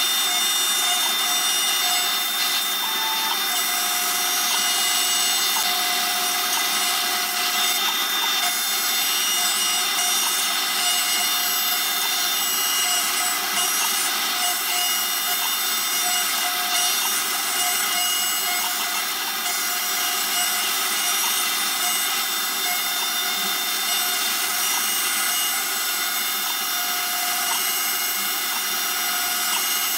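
CNC router spindle milling a slot in a folding-knife handle blank, with a shop vacuum nozzle held near the bit. The result is a steady machine whine made of many high tones that does not change.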